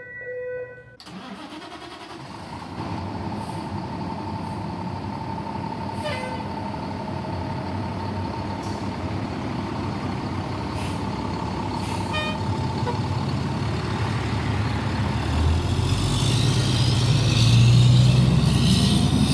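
Fire engine's diesel engine running, with a steady whine over the engine noise. It starts suddenly about a second in, and a deeper rumble builds so that it gets louder over the last few seconds.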